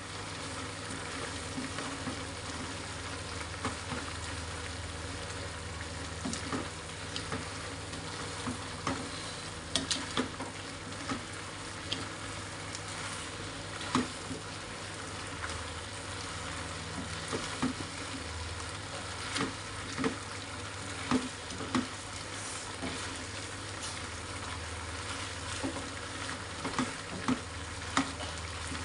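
Chicken feet and gizzard-liver sizzling in sauce in a stone-coated non-stick wok as a spatula stirs them, with sharp knocks and scrapes of the spatula against the pan every second or few.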